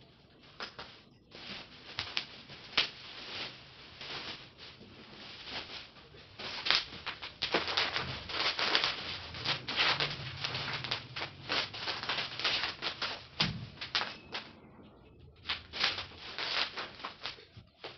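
Plastic wrapping crinkling and rustling as a large framed painting is handled and moved, a dense run of crackles with a brief lull near the end.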